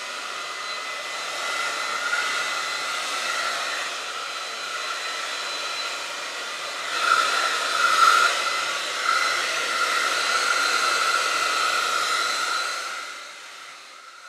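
Hand-held hair dryer running steadily, a rushing blow with a steady whine. It gets louder about seven seconds in, then fades near the end.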